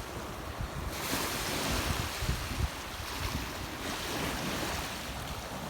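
Rushing water of a river or cascade, a steady hiss that grows louder about a second in, with wind buffeting the microphone in low rumbles.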